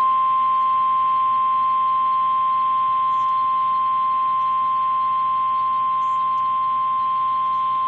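NOAA Weather Radio warning alarm tone: a single steady 1050 Hz tone that comes on abruptly and holds unbroken, signalling that a warning announcement follows. A faint radio hiss lies under it.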